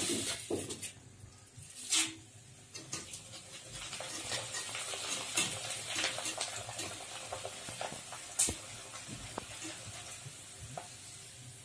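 Corn flakes deep-frying in hot oil in a wire-mesh skimmer dipped into an iron kadhai on a medium flame: steady sizzling with many small crackles. Two sharp knocks stand out, one about two seconds in and one past eight seconds.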